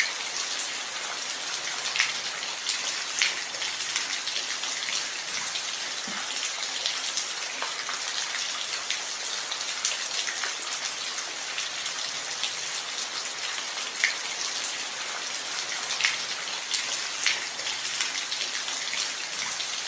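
Steady rain, a dense hiss of falling drops with scattered louder drips landing close by.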